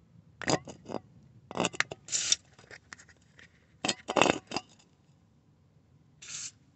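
Aerosol can of spray lithium grease, squirted through its straw nozzle in short bursts, mixed with clicks and rattles from handling the can. The sounds come in clusters about half a second in, around two seconds and around four seconds, with one more brief hiss near the end.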